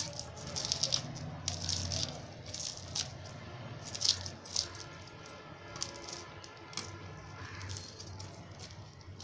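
Knife blade scraping the scales off a climbing perch, a run of quick, irregularly spaced scraping strokes.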